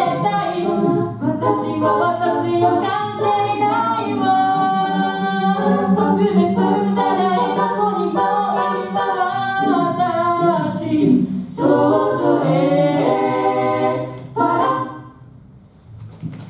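A small group of women singing a cappella in close harmony, several voice parts at once with a low part sustained underneath. The singing ends about fifteen seconds in.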